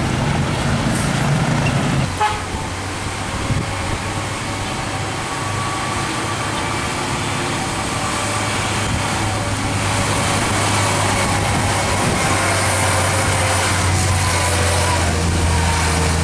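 Heavy diesel trucks running past on a road, with a steady low engine drone that grows a little louder near the end.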